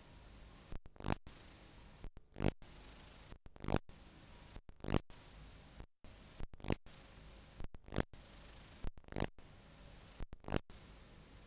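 Blank videotape playing back: a steady hiss broken every second or so by a brief dropout and a sharp pop, often two in quick succession.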